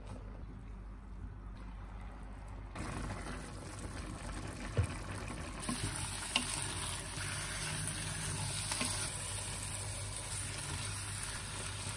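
Diced chicken, onion and mushrooms sizzling as they fry in a nonstick pan while being stirred with a wooden spoon, with a couple of sharp knocks of the spoon against the pan around the middle.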